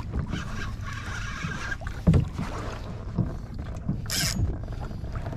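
Water knocking and slapping against a plastic fishing kayak's hull under a low rumble of wind on the microphone. There is one hard knock about two seconds in and a brief high hiss about four seconds in.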